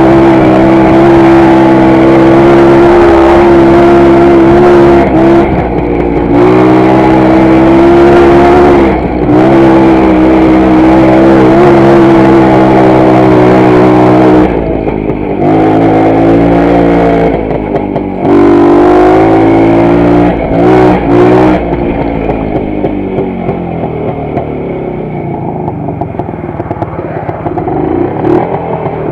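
WSK 125's single-cylinder two-stroke engine running under throttle on a ride, its pitch shifting with speed and dipping briefly several times as the throttle is eased. In the last several seconds it runs quieter at lower revs.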